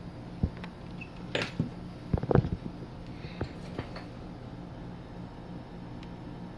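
A few light clicks and taps of small tools on a TV circuit board while capacitors are being removed, the loudest a quick cluster about two seconds in. A steady low hum runs underneath.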